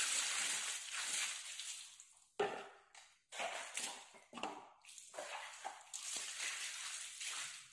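Water poured over a mountain bike's soapy chainrings and chain, splashing and running off to rinse away dish-soap suds. It pours steadily for about two seconds, then comes in shorter pours with a few sharp knocks, the first about two and a half seconds in.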